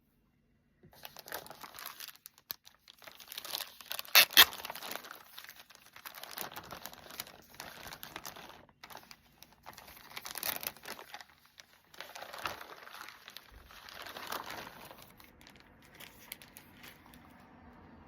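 Packaging being unwrapped by hand: wrapping crinkling and rustling in irregular handlings, starting about a second in, with the loudest crackle about four seconds in.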